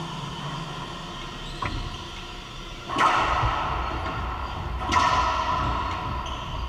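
Racquetball rally: two loud cracks of racquet and ball, about two seconds apart, each ringing on in the echo of the enclosed court, after a fainter tap.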